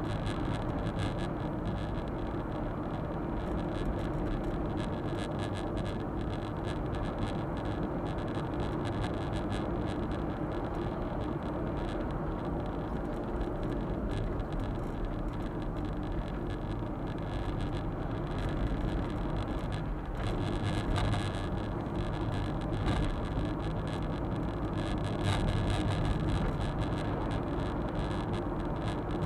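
Suzuki Super Carry kei truck driving: a steady mix of engine and road noise heard from inside the cab, with no sharp events.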